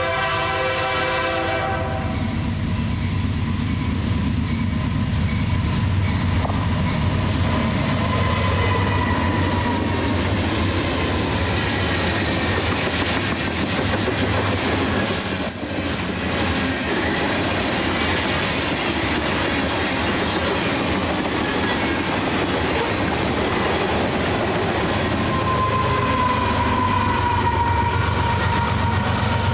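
A freight locomotive's air horn sounds for about the first two seconds. Then a fast freight train of covered hopper cars rushes past with steady wheel-and-rail noise and a high squeal that comes and goes. After a brief break about halfway, a BNSF diesel locomotive goes by close near the end.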